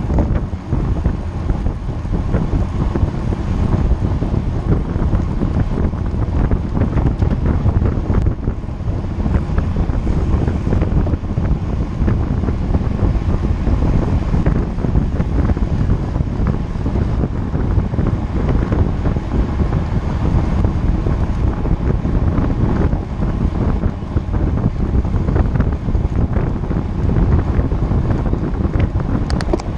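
Steady, loud wind noise buffeting a camera microphone, from riding a road bike at speed.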